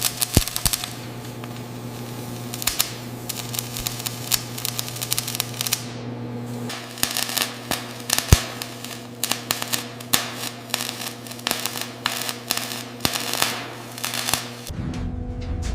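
A steady low electrical or machine hum under many irregular sharp clicks and taps, which come thicker in the second half. About a second before the end the hum cuts off and a low rumble takes its place.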